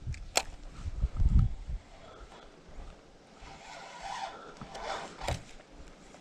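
Spinning rod and reel being handled during casting: a sharp click about half a second in, low handling thumps, a short raspy scraping stretch in the middle, and another sharp click near the end.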